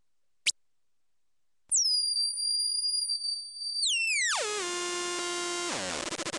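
Homemade wooden electronic noise box: a single click, then a high whistling tone that holds steady and then steps down in pitch to a low buzz with many overtones. Near the end the buzz drops again into a rapid pulsing stutter.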